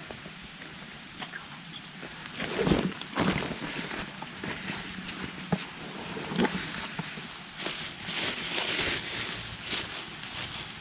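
Irregular rustling and crunching with scattered clicks and knocks, starting about two seconds in, with a louder hissing stretch near the end.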